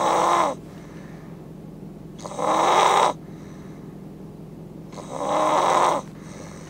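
A man snoring loudly: three snores, each under a second long, about two and a half seconds apart. The loud snoring comes from a partly blocked nose.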